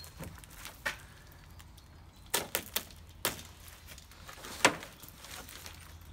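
A handful of separate sharp clicks and knocks, the loudest about three-quarters of the way through, as tape and packaging are cut and pulled off a wrapped bonnet.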